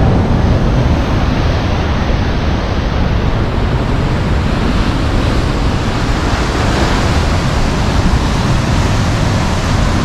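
Rough sea surf, a steady rush of waves with wind buffeting the microphone.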